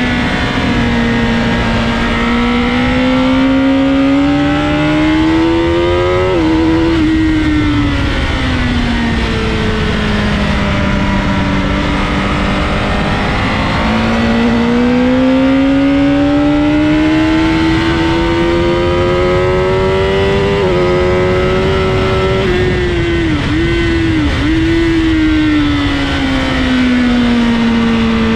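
Sport motorcycle engine heard from on board at track speed, its pitch climbing under acceleration and dropping sharply at a gear change about six seconds in, then falling away as the bike slows. The climb and fall repeat, with two brief dips in pitch as it shifts down near the end, over a steady rush of wind.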